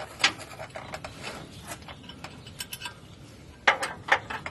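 Hand ratchet wrench clicking in quick, uneven strokes while working bolts loose, with a few louder metal knocks about a quarter second in and twice near the end.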